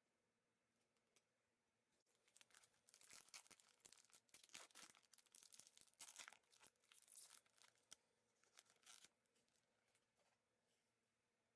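A trading-card pack's plastic wrapper being torn open and crinkled by gloved hands, a run of crackly tearing and rustling from about two seconds in to about nine seconds in.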